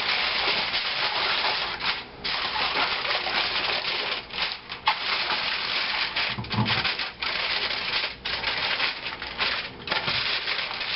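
A cover being pressed and worked over a full pan of carnitas: a continuous scratchy rustling and rubbing that breaks off briefly several times.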